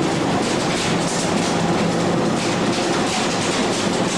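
Fishing trawler's machinery running: a steady, loud mechanical noise with a faint regular beat.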